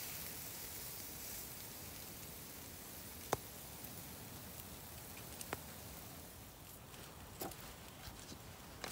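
Low, steady hiss of a steak sizzling on a grate over campfire coals, with a few sharp clicks, the loudest about a third of the way in and another a little past halfway.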